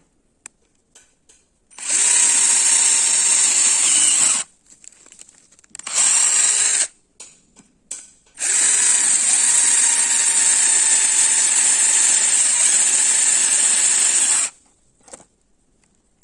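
Buildskill 12-volt Li-ion cordless drill motor running in three spells: one of about two and a half seconds, a short one-second spin, then a longer run of about six seconds, with small clicks in the gaps between.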